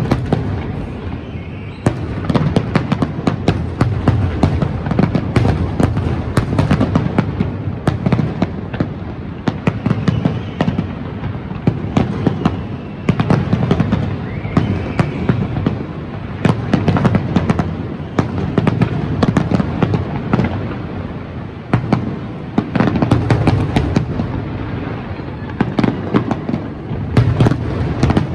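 Fireworks display going off without pause: dense rapid crackling over deep booms of shells bursting, coming in waves.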